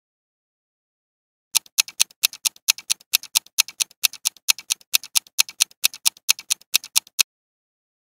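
Countdown timer sound effect: a clock ticking at about four ticks a second, alternating louder and softer, starting about a second and a half in and stopping shortly before the end.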